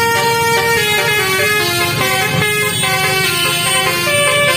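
Telolet basuri musical air horn on a tourist bus playing a quick tune of stepped notes, one pitch after another with no pause.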